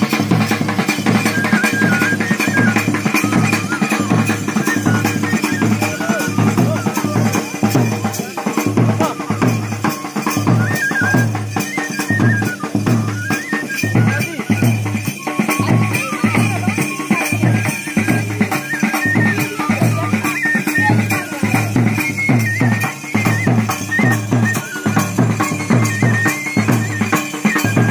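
Live Pahadi folk music: a wind instrument plays a wandering melody over a steady beat on double-headed drums.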